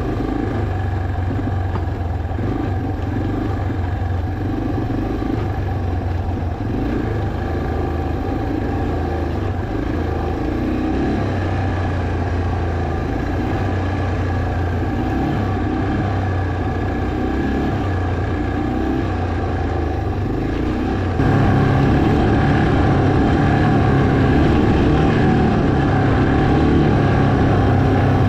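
Yamaha TT-R230 dirt bike's single-cylinder four-stroke engine running steadily while riding a dirt trail. About 21 seconds in it turns suddenly louder and rougher.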